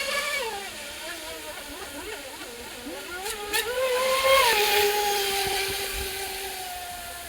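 3D-printed RC raceboat's motor whining, rising in pitch as it speeds up about three to four seconds in, then dropping and sliding slowly lower as it fades. A hissing rush comes with the loudest moment.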